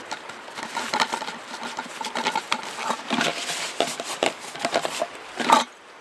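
A nylon drawstring stuff sack rustling as an APG integrated canister stove pot is pulled out of it and handled, with light knocks among the rustling. The loudest rustle comes about five and a half seconds in, then it stops.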